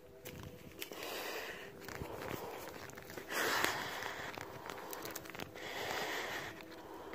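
Footsteps and handling noise on ash-covered, burnt ground, with scattered small crunches and clicks. A person breathes audibly in a few long breaths, the loudest about three seconds in and another near the end.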